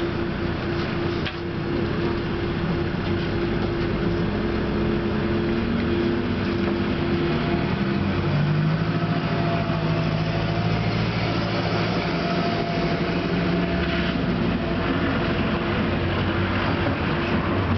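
Tram running between stops, heard from on board: a steady rumble of wheels and running gear with a constant hum, and an electric traction-motor whine that climbs in pitch a few seconds in as the tram picks up speed, then holds steady.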